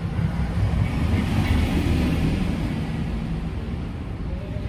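A steady, low engine rumble of a vehicle running close by, a little louder in the first couple of seconds.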